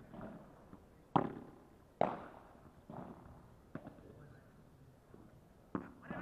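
Padel rally: the ball is struck back and forth by the paddles and bounces on the court, making about five sharp pops roughly a second apart. The loudest two come about one and two seconds in.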